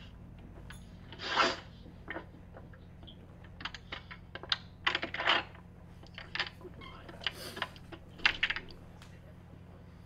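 Scattered light clicks and a few short hissy bursts over a low steady hum.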